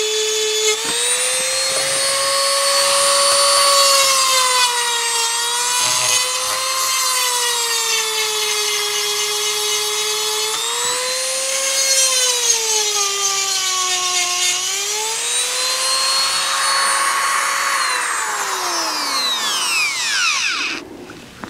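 EzzDoo rotary tool running at top speed with a diamond bit, grinding chainsaw chain cutters. Its high whine dips and rises in pitch as the bit bears on the teeth, then winds down near the end as it is switched off, the bit having started to loosen.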